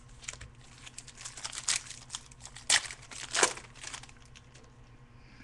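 Trading-card packs and cards being handled: irregular crinkling and rustling of foil pack wrappers and cards, with a few louder crinkles in the middle that die away near the end.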